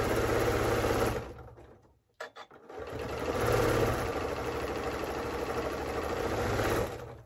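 Janome MC9400 sewing machine with a walking foot stitching through thick layers of flannel, cotton and cuddle fabric. It runs for about a second, stops with a few small clicks, then runs again for about four seconds before stopping near the end.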